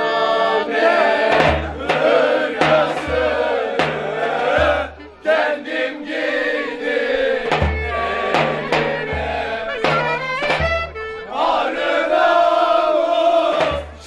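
A group of young men singing a Turkish song together in chorus, with a davul bass drum struck in deep, uneven beats underneath.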